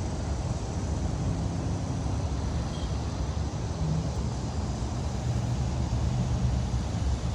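Steady low rumble of outdoor background noise, with a faint hum.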